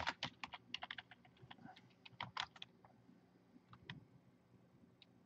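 Faint typing on a computer keyboard: a quick run of key clicks for about three seconds, then a few scattered clicks.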